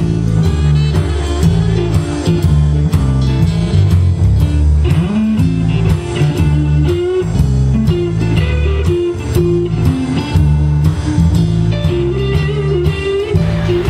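Live blues band playing: electric bass guitar, electric guitar, keyboard and drums, with the bass line loudest.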